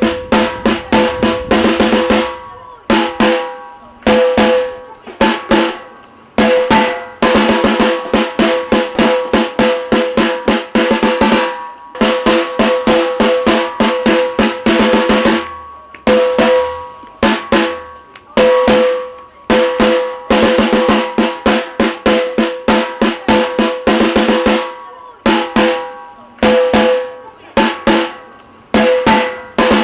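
Snare drum beating a march of rapid strokes and rolls, in phrases separated by short pauses.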